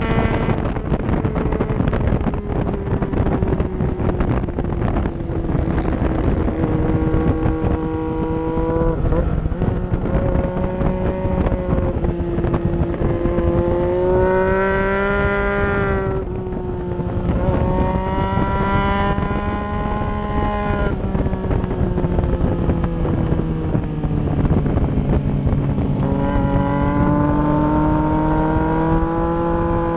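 2012 Triumph Street Triple's 675 cc inline-three engine at race pace, its revs climbing and dropping again and again with gear changes and braking into corners. Wind rushing over the microphone runs under it.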